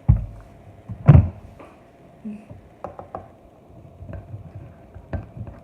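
A spoon knocking and tapping against a bowl while slime is stirred, with two heavier thumps about a second apart at the start, then lighter scattered clicks.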